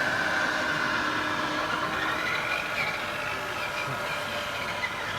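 Radio-controlled model construction vehicles running: a steady whine of small electric motors and gearing, its pitch wavering slightly.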